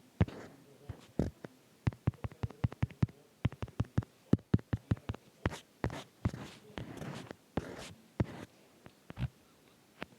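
Drawing by hand: irregular sharp taps and short scratchy strokes, with a quick run of taps about two to three seconds in.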